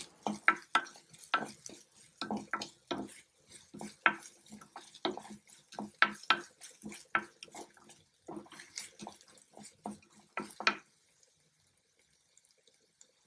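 Wooden spatula stirring and scraping chopped onion and green chilli around the oiled bottom of an unglazed clay pot: a quick, irregular run of scrapes and knocks that stops about eleven seconds in.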